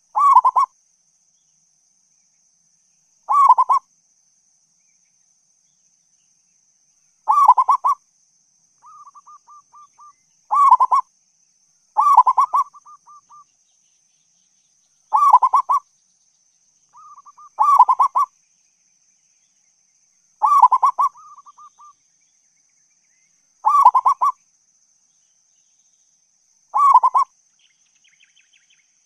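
Zebra dove (perkutut) singing: about ten short, loud, rolling cooing phrases, one every three seconds or so. Some phrases are preceded or followed by a softer, rapid run of short notes.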